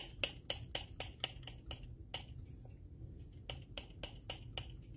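Fine-mist pump spray bottle of makeup setting spray pumped rapidly at the face: a quick run of short spritzes, about five a second, a pause of about a second midway, then several more.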